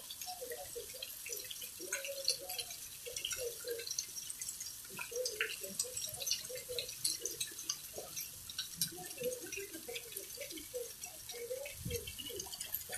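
Rain dripping as a shower eases off: many irregular drops splashing and ticking.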